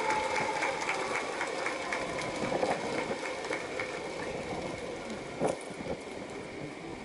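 Ballpark crowd applauding, many scattered hand claps over a general crowd noise that slowly thins out.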